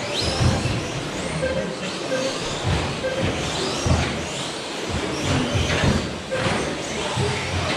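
Several 1/10-scale electric short course RC trucks racing on an indoor track: their motors whine up in repeated rising sweeps as they accelerate, over frequent low thumps of the trucks landing and bumping.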